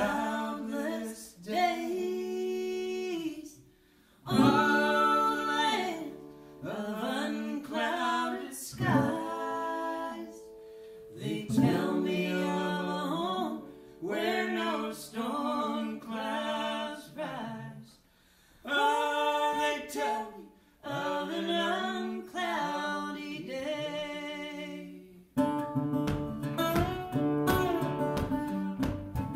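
A man and a woman singing together in sung phrases with brief pauses and little accompaniment. About 25 seconds in, acoustic guitar and a plucked fiddle start playing a lively rhythm.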